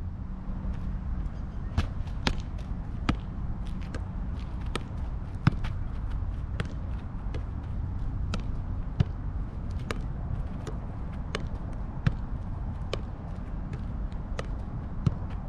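A soccer ball being juggled in a foot–knee–head–knee–foot sequence: a steady run of sharp touches, about one to two a second, as it is struck by the feet, knees and head, over a low steady rumble.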